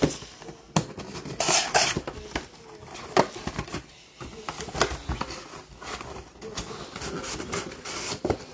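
Cardboard trading-card hobby box being handled and opened: scattered taps, clicks and scrapes of cardboard against a wooden tabletop, with a longer rustle about a second and a half in.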